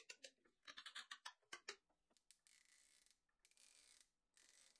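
Near silence with a quick run of faint short clicks in the first two seconds, then only a faint hiss.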